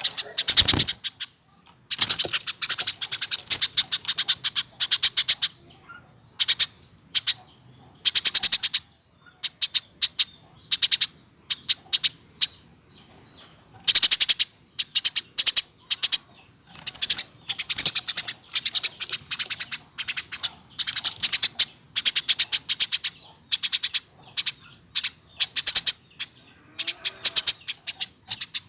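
Eurasian tree sparrow (burung gereja) chirping in fast rattling strings of high notes, in bursts of one to a few seconds with short pauses between. It is the full song of a hand-raised bird over a year old, which only comes with that age.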